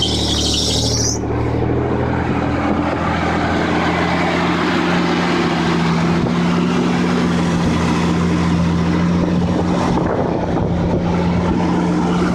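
Nissan 300ZX V6 engine running at a steady idle after its intake and air filter were cleaned, the restart that cures its stalling. A high-pitched squeal cuts off about a second in.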